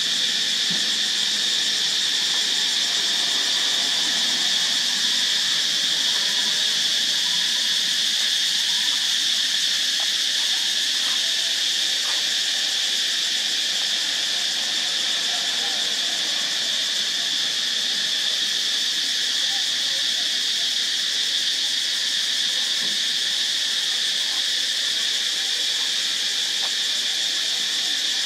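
Steady chorus of insects: an unbroken high-pitched drone that keeps an even level throughout.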